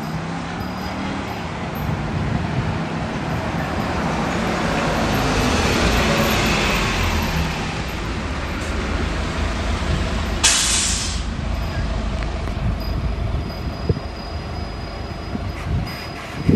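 Road traffic going by: a vehicle's noise swells over several seconds and fades away, then a short, sharp hiss about ten seconds in.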